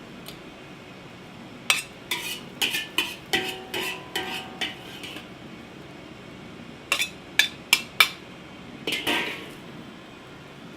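Utensils clinking and tapping against dishes: a quick run of clinks with a brief ring, a pause, then four sharp taps and a short scrape.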